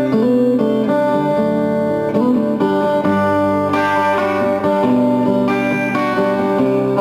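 Instrumental guitar music played live: plucked notes and chords ringing on, the melody moving from note to note.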